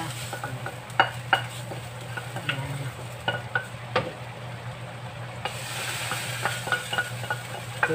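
A cooking utensil scraping and tapping sharply against a frying pan as sautéed garlic, onion and celery are emptied into a pot, over a steady sizzle of chicken cooking in butter sauce.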